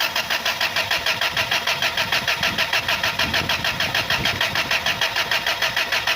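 Freshly rebuilt engine being cranked on the starter, turning over with a steady, even pulsing of about six beats a second, without settling into a clean idle.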